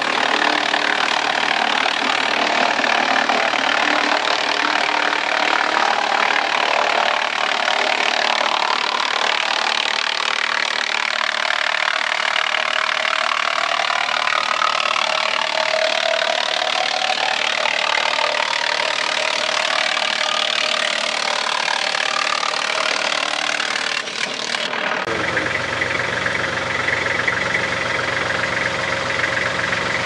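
OXXN OX-8000 8-inch PTO-driven wood chipper chewing through a long tree limb as its power-feed roller pulls the limb into the hopper: a loud, continuous grinding. About five seconds before the end it switches abruptly to a steadier machine drone with a low pulsing hum.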